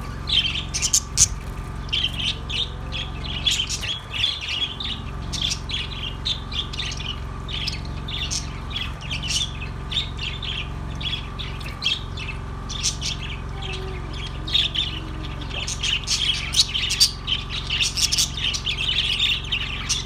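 A large flock of budgerigars chattering continuously: many short, high chirps and squawks overlapping without a break.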